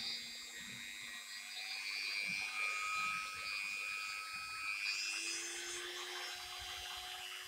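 Bort BCT-140 rotary tool's brushed motor running with no load. Its whine rises in pitch as the speed dial is turned up a step at a time, with a clear jump about five seconds in.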